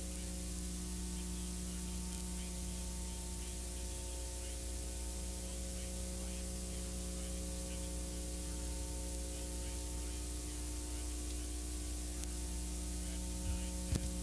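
Steady hiss and electrical hum from an old broadcast recording, with no speech or distinct event over it. A couple of faint clicks come near the end.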